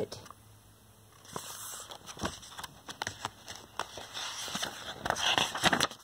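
Pages of a paper picture book being handled and turned: rustling with scattered light clicks and taps, loudest about five seconds in.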